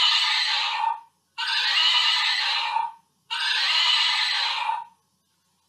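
A plush hobby horse's built-in sound unit playing a recorded horse whinny three times in a row, each about a second and a half long, with short silent gaps between.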